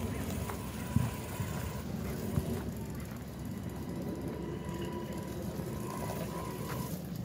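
Twin electric motors of a Wltoys 124018 RC truck converted to 6x6, driving on a dirt path, heard as a faint thin steady whine under a low rumble of wind and handling on the microphone, with a few short thumps.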